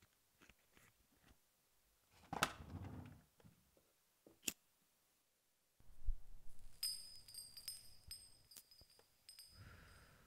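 A cigarette lighter clicks once as a woman lights a cigarette. About six seconds in, a low thud brings in a low hum with high, steady ringing tones and scattered ticks, and a breathy exhale of smoke follows near the end.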